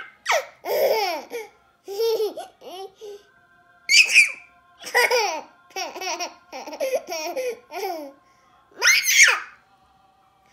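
Toddler laughing in repeated short bursts, with two high-pitched squeals, about four seconds in and near the end.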